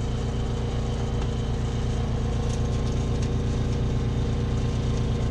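Steady engine drone running at an even idle, with a regular low pulse, and a few faint clicks in the middle.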